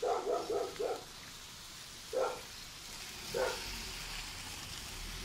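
A dog barking: a quick run of about six yaps in the first second, then two single barks a little over a second apart.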